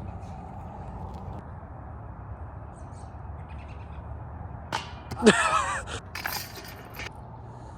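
A disc golf putt striking the target: a sharp clank about five seconds in, followed by a brief ringing metallic rattle and a couple of smaller knocks over the next second or two, over a steady background hiss.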